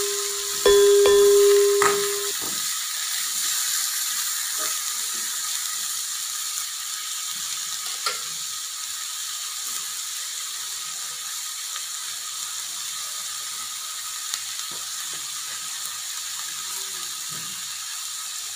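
Vegetables and curry leaves frying in oil in a metal pan: a steady sizzling hiss with faint crackles. Over it, about a second in, a loud electronic chime tone sounds briefly and stops.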